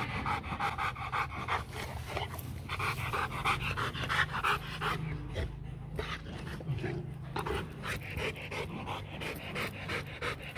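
Rottweiler panting hard with its mouth open, quick even breaths several times a second.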